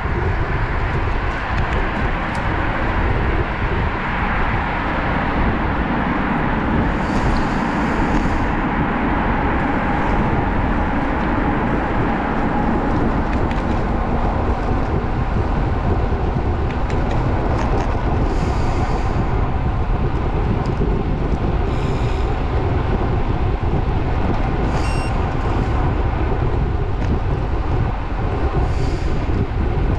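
Steady wind rush and road rumble on the microphone of a moving road bicycle, with a few brief faint high-pitched sounds over it.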